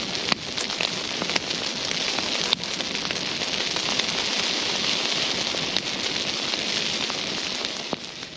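Bonfire burning hard, with a steady rushing hiss and frequent sharp crackles and pops of burning wood. The sound drops away sharply near the end.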